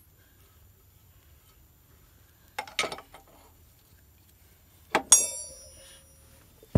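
Steel wrenches clanking against bolts and the metal housing of a tractor-mounted olive tree shaker head: a few short clanks midway, then a sharp metallic strike about five seconds in that rings with a clear tone for about a second, and a knock at the very end.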